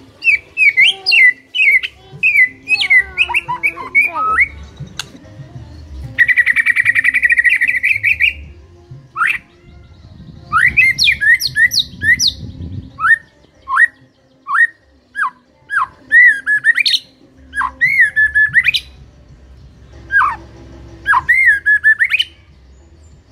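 White-rumped shama singing a varied song: clear whistled phrases, a buzzy rattling trill lasting about two seconds some six seconds in, then a run of sharp rising and falling whistled notes.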